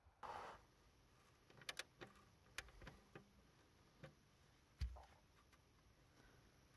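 Near silence broken by a short rustle at the start, a few faint clicks, and a light low knock about five seconds in: handling noise from working with a hand tool at a truck's steel oil pan.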